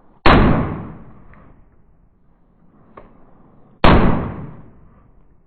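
Two gunshots about three and a half seconds apart, each followed by a long fading echo, with a faint click between them.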